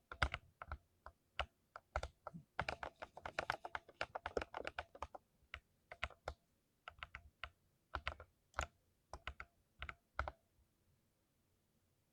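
Typing on a mechanical keyboard: irregular sharp keystroke clicks, a quick flurry in the middle, then slower scattered presses that stop about two seconds before the end.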